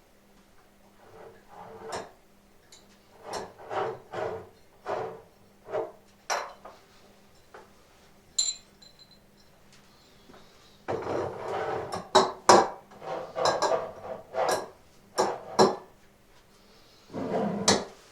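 Objects being handled and put down on a table: a series of knocks and clinks, with a brief ringing clink about halfway and two longer scraping, rustling stretches in the second half.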